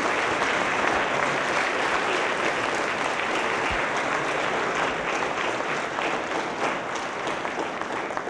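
Audience applauding in a large hall: dense clapping that thins out toward the end as fewer hands keep going.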